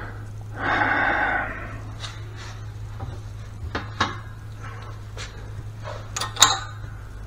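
Metal clinks and knocks from handling the Harley 5-speed transmission's steel main shaft and gears, with a short metallic rattle about a second in and a louder clank near the end. A steady low hum runs underneath.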